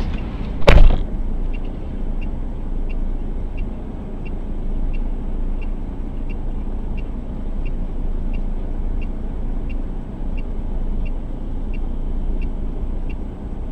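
A car's indicator or hazard-light flasher ticking steadily, about one and a half ticks a second, inside the cabin of a stationary car, over the low hum of its idling engine. A single loud thump comes just under a second in, before the ticking starts.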